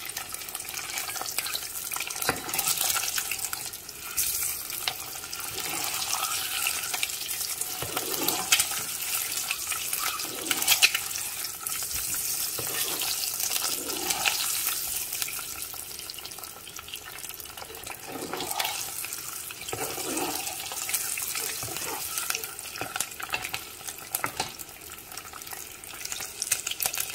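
Spiced boiled eggs sizzling steadily in hot oil in a pan as they fry. A spatula moves them around, with a few sharp knocks against the pan.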